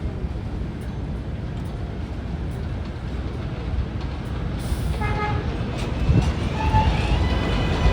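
R188 subway train rumbling on the elevated track. About five seconds in, a horn gives a short toot, then a second brief toot follows, as trains honk at each other. Near the end a rising whine starts.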